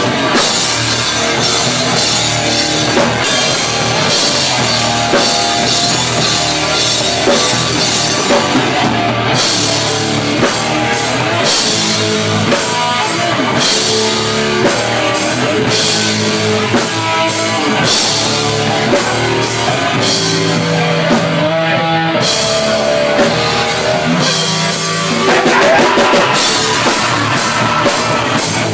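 Live rock band playing loudly: a drum kit with cymbals and electric guitars, continuous throughout, swelling a little louder for a moment near the end.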